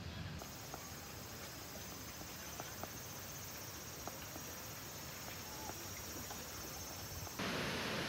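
Faint outdoor ambience: a steady hiss with scattered short chirps or ticks. Near the end it cuts abruptly to the louder, steady rush of Harajiri Falls.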